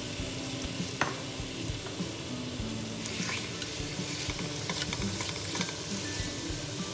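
Raw chicken pieces sizzling in olive oil in a stainless steel pot, stirred with a wooden spatula that scrapes and clicks against the pot, with a sharper knock about a second in.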